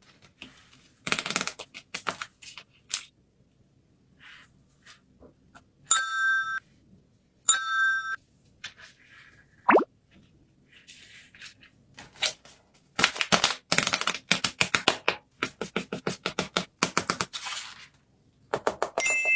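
Handling noises from paper crafts: scattered taps and crinkles, then a fast run of clicks and crinkles near the end. Two bright chime sound effects ring out about 6 and 7.5 seconds in, a quick falling 'plop' effect follows at about 10 seconds, and another chime sounds at the very end.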